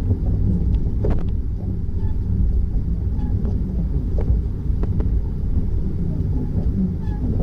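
Steady low rumble of road and engine noise inside the cabin of a Local Motors Rally Fighter driving along, with faint ticks and rattles over it.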